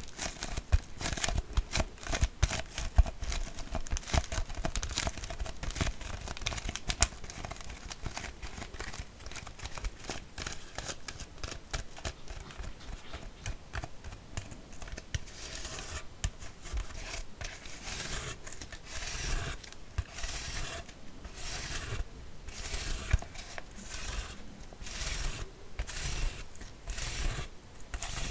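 Empty plastic (PET) kvass bottle being handled: dense crinkling and clicking of the thin plastic, then from about halfway a regular series of rubbing or scratching strokes on it, about one or two a second.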